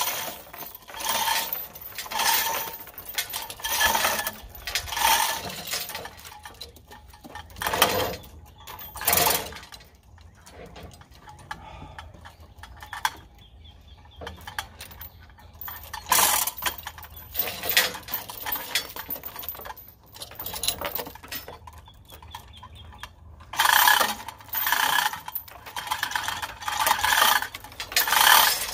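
Hand-pulled chain hoist lifting a log: the chain rattles and the hoist ratchets in repeated bursts about a second apart, quieter through the middle and then in a quick run of pulls near the end.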